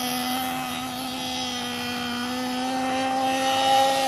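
Small nitro glow engine of an RC truggy running at a steady high rev as it drives, its pitch creeping slightly higher and growing a little louder toward the end.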